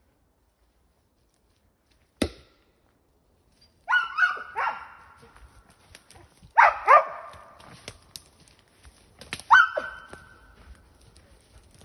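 Hunting laika barking in short groups of one to three barks, baying up at the trees as in squirrel work. A single sharp knock about two seconds in, before the barking starts.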